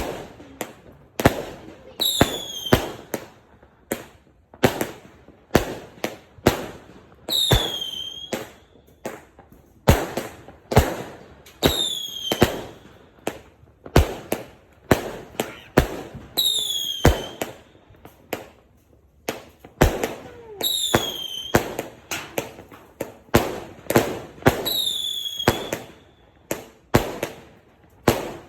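Fireworks going off shot after shot, a sharp bang roughly every half to one and a half seconds. Every four or five seconds a bang carries a short whistle that falls in pitch.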